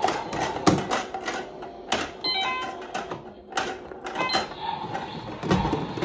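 Plastic clicks and knocks as the door of a Little Tikes toy washing machine is handled and shut with plastic balls inside. A brief string of electronic beeps comes about two seconds in.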